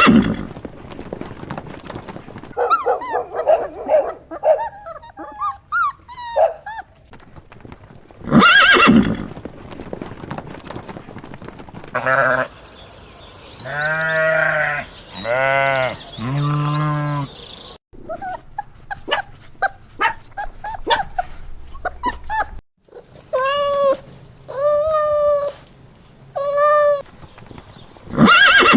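A sequence of farm animal calls, separated by whooshing sound effects: a group of short calls, then three long low calls, then three shorter higher-pitched calls.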